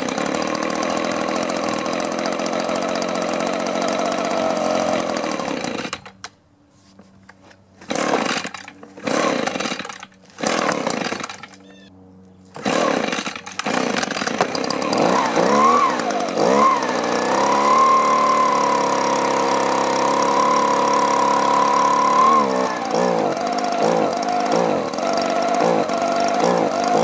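Echo handheld leaf blower's two-stroke engine running on half choke, then dying about six seconds in. It is restarted with several short cord pulls that each fire briefly, then catches, revs up, holds a steady high speed and drops back to a lower speed near the end. This is a hard-starting engine that won't stay running.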